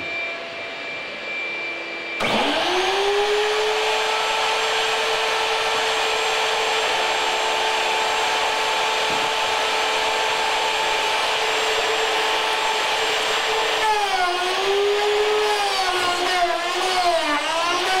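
An electric door-lock mortising router switches on about two seconds in and spins up to a steady high whine. Near the end its pitch dips and wavers again and again as the bit is fed into the door edge and cuts the lock mortise under load.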